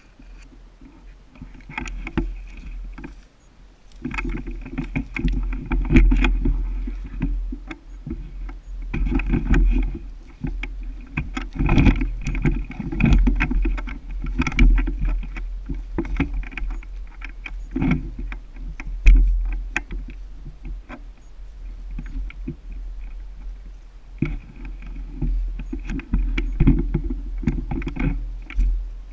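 Wind and handling noise rumbling on a body-worn GoPro action camera, swelling and dropping, with irregular crackling and rustling from moving through brush.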